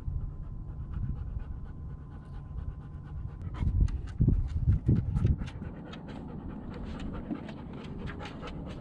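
Hound dog panting steadily close to the microphone, with a cluster of louder low thumps about four to five seconds in.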